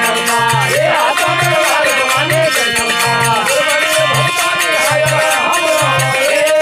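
Marwari devotional bhajan: a harmonium playing steady chords under a male voice singing a bending, ornamented melody, with a low drum beat about once a second and jingling percussion keeping time. Near the end the melody settles on one held note.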